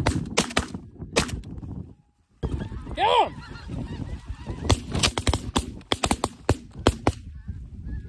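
A flock of snow geese calling overhead: many short, high, overlapping honks and yelps, broken by a brief silence about two seconds in.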